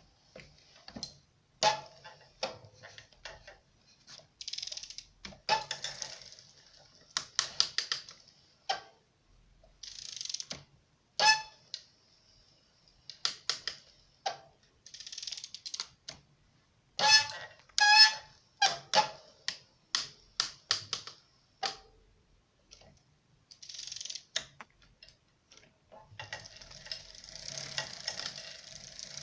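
Bafang BBS02 mid-drive motor crackling, in irregular clusters of sharp clicks as the cranks are pedaled slowly under load, always at the same pedal position. The uploader puts it down most likely to a slightly loose bottom bracket mounting nut. A high screech from the lightly applied rear brake comes and goes.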